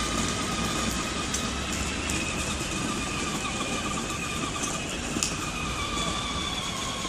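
Battery-powered toy car driving along asphalt, its small electric motor giving a steady, slightly wavering whine over a low street rumble.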